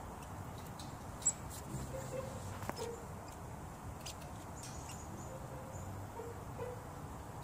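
Quiet woodland ambience with scattered small clicks and crackles, one sharper tick about a second in.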